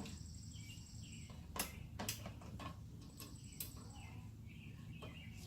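A few faint, sharp clicks of hand tools working on the car's rear brake, with birds chirping in the background.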